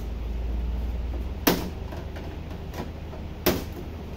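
Plastic back cover of a Samsung UN65RU7100 TV being pried along its seam with a flat-blade screwdriver, giving two sharp clicks about two seconds apart as the cover's clips snap loose.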